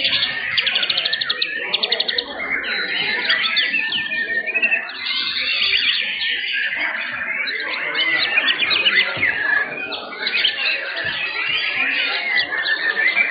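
Several caged white-rumped shamas (murai batu) singing at once: a dense, loud, overlapping chorus of whistles, trills and fast repeated notes.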